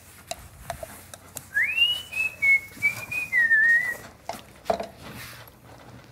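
A person whistling a short wavering tune for about two and a half seconds, starting with a quick rise and sinking at the end. Light knocks and clatter of kitchen items sound around it.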